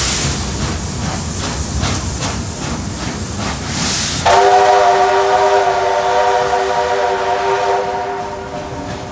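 Steam locomotive 3801 pulling out with a train, its exhaust beating about three times a second with bursts of steam hiss. About four seconds in, a loud whistle sounds a steady chord of several notes for about four seconds, then fades.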